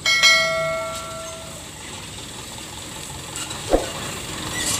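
A bright bell-like notification chime, the sound effect of a subscribe-button animation, rings out at the start and fades over about a second and a half. A short click follows a little over three and a half seconds in, over a steady background noise.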